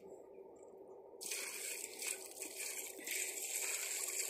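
Water poured from a metal bucket, splashing over bare feet onto a cement well platform; the pouring starts about a second in and gets heavier about three seconds in.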